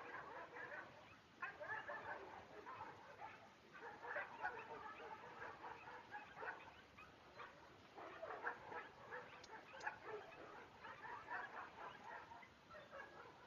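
Faint barking and yipping from canines, in repeated bouts with short pauses.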